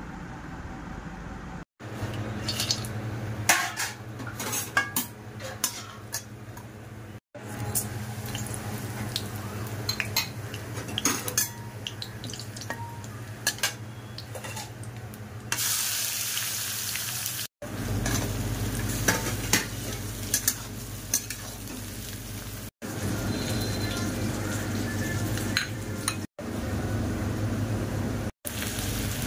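A metal spatula clinking and scraping in a kadhai while oil sizzles, in several short clips cut together, with a steady low hum underneath. A louder hiss of sizzling lasts about two seconds just past the middle.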